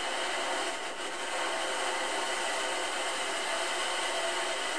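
Hurricane-force wind and driving rain, a steady rushing noise with no breaks.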